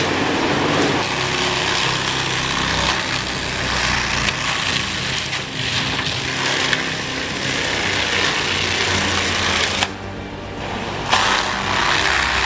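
Heavy machinery running hard: a steady engine with a harsh, rough cutting noise over it. It drops off briefly about ten seconds in, then picks up again.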